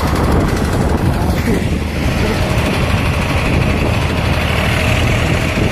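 Farm tractor's diesel engine running close by as it drives along the road, mixed with steady road and wind noise from the moving vehicle.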